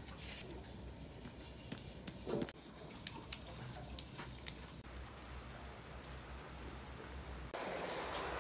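A few light clinks of a porcelain spoon against a small bowl while seasoning is spooned out, over a faint low background. Near the end a louder, steady hiss of rain sets in.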